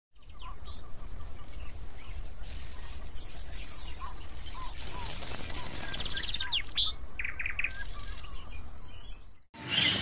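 Several birds chirping, trilling and whistling over a low steady rumble, cutting off suddenly near the end.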